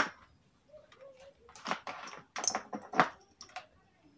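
A run of light, irregular clicks and taps from parts being handled on a workbench, starting about one and a half seconds in, with the sharpest near the three-second mark.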